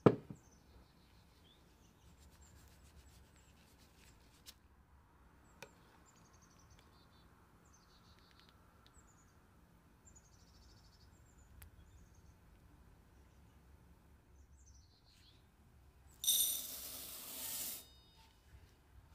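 Faint birds chirping, short falling calls repeated throughout. Near the end comes the loudest sound, a rush of about a second and a half with a glassy ring: dry red lentils poured into a glass bowl.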